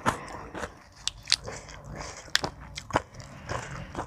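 Close-miked chewing and biting of a spicy Thai seafood pounded salad, with several sharp crunches among softer wet chewing.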